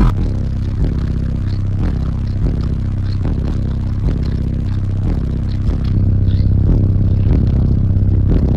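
A wall of nine Fi Team NEO 12-inch subwoofers, driven by about 100,000 watts, playing a bass-heavy music track loud: deep bass notes stepping in pitch over a steady beat.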